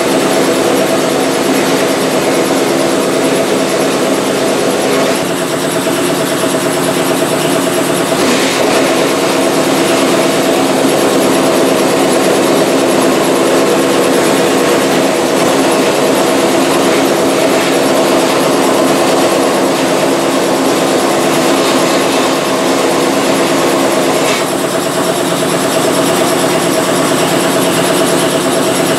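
Vapor blasting cabinet running at 60 PSI, its blast gun spraying a water-and-abrasive slurry onto brake caliper brackets: a loud, steady hiss over a steady mechanical drone. The hiss eases for a few seconds about five seconds in and again near the end.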